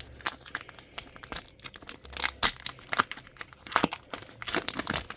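Foil Pokémon TCG booster pack being torn open, with irregular crinkling and ripping of the wrapper.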